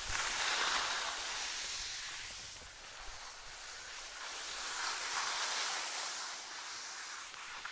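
Skis scraping and hissing over packed snow through turns, the noise swelling and fading twice as the edges bite.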